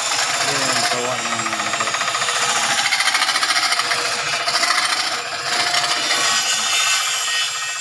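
Wood lathe turning a large wooden bowl while a hand-held turning tool cuts into the spinning wood, a loud steady scraping noise that eases off near the end.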